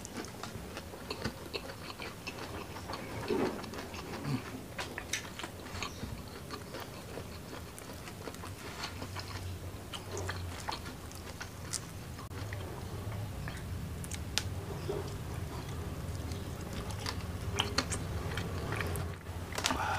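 Close-miked eating sounds: a person chewing and biting rice and fried gourami, with many scattered wet mouth clicks and smacks.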